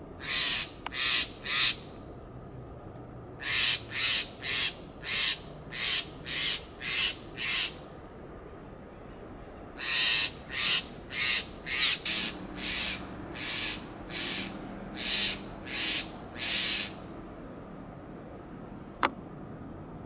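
Steller's jay giving its harsh, rasping call in rapid series: three calls, a pause, about seven, then about ten more. A single sharp click comes near the end.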